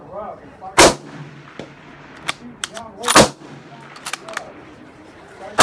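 Three loud .30-06 rifle shots from a Madsen M47 bolt-action rifle: one about a second in, one near the middle and one at the end. Between them come short metallic clicks of the bolt being worked.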